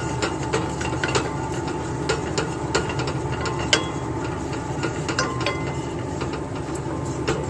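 Cardamom, cloves and cinnamon frying in hot oil in a pan, with irregular small pops and crackles over a steady background hum.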